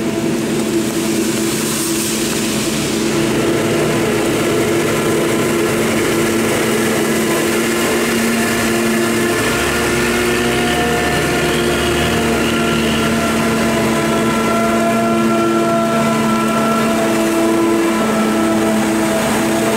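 Claas Jaguar 965 forage harvester chopping maize: the steady drone of its engine and cutting and blowing gear, together with a Fendt tractor running close alongside. A deeper rumble joins about halfway through.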